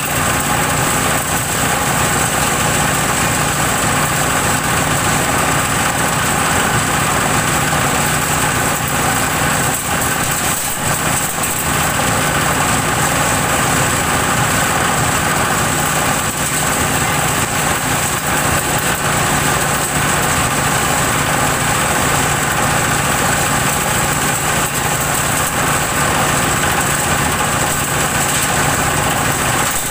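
Organic-waste chopper with twelve blades, driven by its stationary engine, running steadily as compost material is shovelled in.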